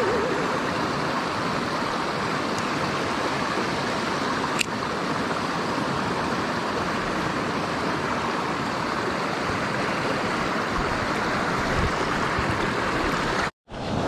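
Small mountain stream running over rocks and little cascades, a steady rushing of water. A single short click about four and a half seconds in, and the sound drops out for a moment near the end.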